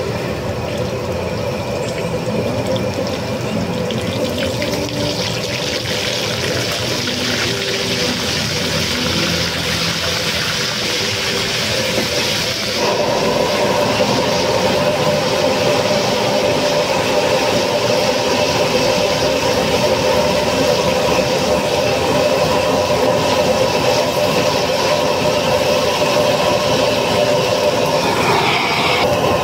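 Hot oil sizzling and bubbling in a wok over a gas wok burner. About halfway through it suddenly gets louder, as a batch goes into the oil and foams up.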